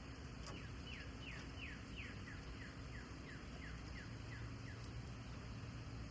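A bird calling a series of about a dozen short, down-slurred whistles at about three a second. The first few are higher, then the series drops in pitch, over a steady background hiss.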